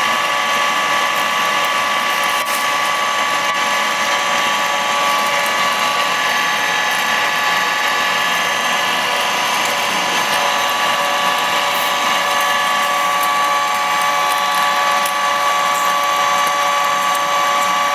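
Foradia GK 50/1500 radial drill running with its spindle on power feed, the gearbox giving a steady whine of several tones at once.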